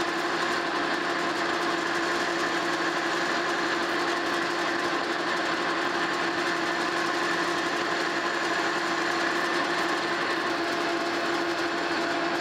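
Monarch Model K metal lathe running steadily, a constant hum with a high whine, while the cutting tool, fed in on the compound at 60 degrees, turns a point on the end of a screw blank.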